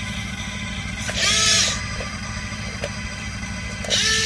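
Yigong RC excavator's small electric motors whining twice, about a second in and again near the end, each whine rising, holding and falling as the arm and bucket move.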